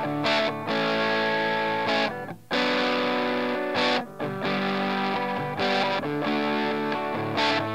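Electric guitar on its bridge humbucker, played through a small homemade valve amp on its crunch channel with the crunch gain at half. Overdriven chords are strummed and held, with a short break at each chord change.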